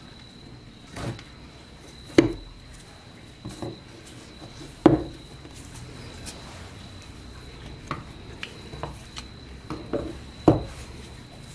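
Rusty cheap-metal replica revolver being worked apart by hand on a wooden workbench: a handful of sharp knocks and clacks as the parts are handled and set down. The loudest come about two, five and ten and a half seconds in.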